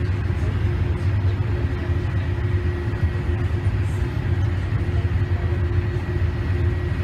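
Boeing airliner's jet engines at taxi power heard from inside the cabin: a steady low rumble with a constant hum and a faint high whine.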